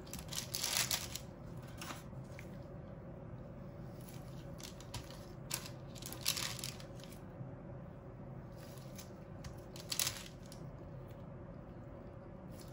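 Gloved hands handling soft Oreo cheese balls and pushing bamboo skewers into them on a parchment-lined tray: a few short rustles of paper and gloves over a low steady hum.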